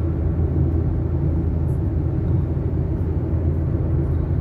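Car on the move: the steady low rumble of engine and road noise.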